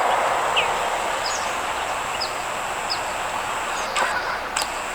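Small songbirds giving short, downward-sliding chirps about once a second over a steady outdoor hiss and a thin high steady tone, with a few sharp clicks near the end.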